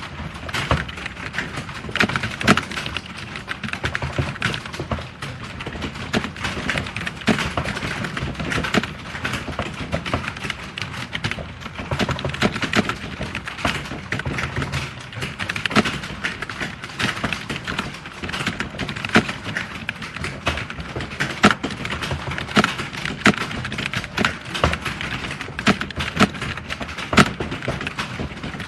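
Fast typing on a computer keyboard: a dense, unbroken stream of key clicks with occasional louder strokes.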